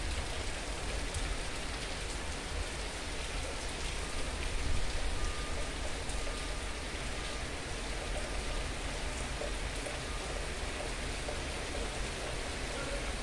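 Steady rain falling, an even hiss of drops on surfaces, with a low rumble underneath.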